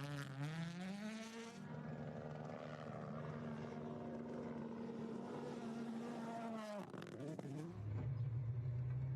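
Rally car engines at high revs, across several quick cuts: the note rises and falls with throttle and gear changes, holds steady for a few seconds, then drops sharply about seven seconds in and climbs again as the car accelerates.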